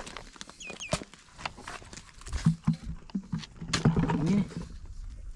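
A long-handled shovel digging into wet mud under a cracked, dried crust: a series of knocks and scrapes as the blade cuts in and levers up a lump of mud. A man's low voice is heard briefly around the middle.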